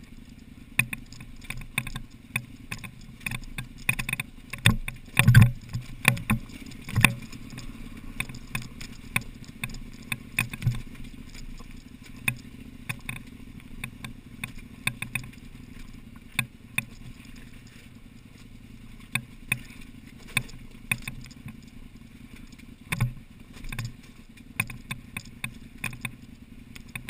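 KTM LC8 V-twin adventure motorcycle running at low revs on a slow rocky descent, with frequent sharp knocks and clatters as the tyres and suspension hit rock, the heaviest about five seconds in.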